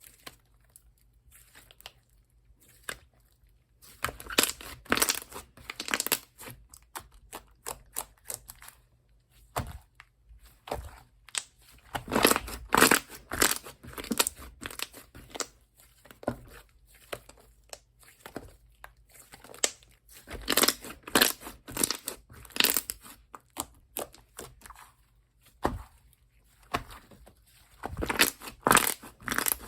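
Hands squishing, pressing and stretching slime, giving bursts of quick sticky clicks and pops with short quiet pauses between them.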